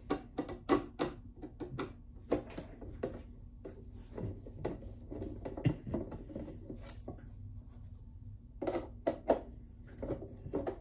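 Screwdriver working short screws out of a sewing machine's plastic bottom plate, with the housing being handled: irregular small clicks, taps and scrapes of metal on plastic, bunched near the start and again near the end.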